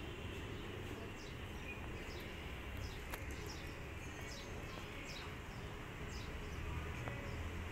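Small birds chirping repeatedly in short, high, falling notes over a steady low background rumble.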